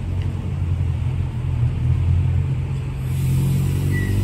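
Metro-North M8 electric train standing at the platform, giving off a steady, loud low hum. A brief high tone sounds near the end.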